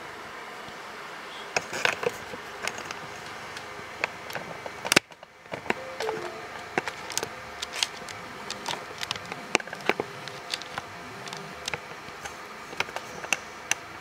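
A desktop computer running with a steady fan whir, with many irregular sharp clicks and ticks over it. The sound drops out briefly about five seconds in.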